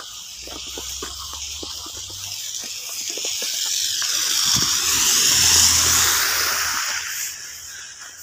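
A car passing on a wet, slushy road: tyre hiss swells to a peak about five to six seconds in, then fades away. Before it, soft footsteps crunch in snow.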